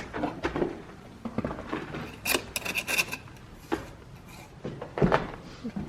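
Scattered short scrapes and light knocks, like hand tools working against brick and mortar, busiest about two to three seconds in.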